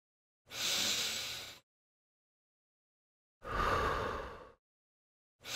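Paced breathing for a crunch: three breaths, each about a second long with silence between, alternating between breathing in and breathing out.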